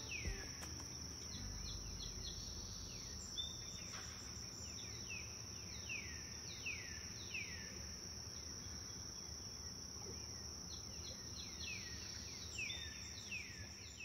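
Outdoor insect chorus, a steady high-pitched trill, with runs of short chirps repeatedly sweeping down in pitch.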